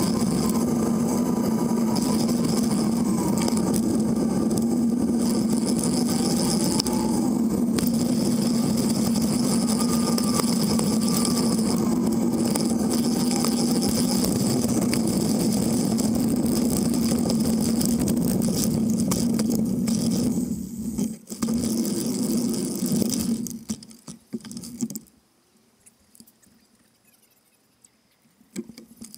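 Steady rumble and hum of a bicycle rolling along a paved path, heard through a microphone mounted low on the bike with wind on it. About 21 seconds in the noise breaks up, and from about 24 seconds it falls to near silence as the bike comes to a stop.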